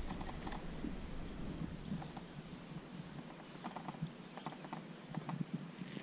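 A small bird gives five quick, high-pitched chirps, about two a second, starting about two seconds in, over a faint patter of water.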